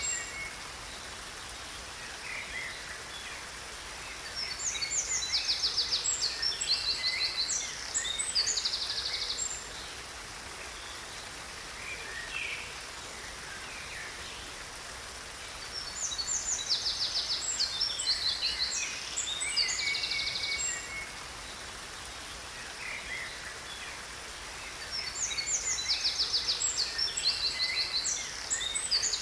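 Songbirds singing in three bouts of quick, high trills and chirps about ten seconds apart, with scattered single chirps between, over a steady hiss of a waterfall.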